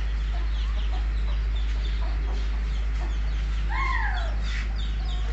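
Domestic chickens clucking, with many short high chirps and one louder call about four seconds in that rises and then falls. A steady low rumble runs underneath.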